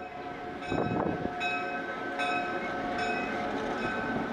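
A diesel-hauled passenger train rolling past with a low rumble, while a bell rings at a steady beat, struck a little less than once a second.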